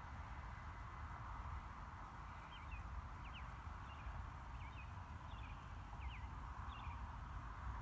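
Open-air ambience: a steady rushing noise with a low rumble, and a series of short, high bird chirps starting about two and a half seconds in and stopping shortly before the end.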